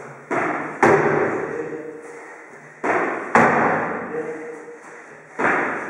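Feet landing hard on and off a wooden plyo box during repeated box jumps: pairs of thuds about half a second apart, coming roughly every two and a half seconds, each ringing on briefly.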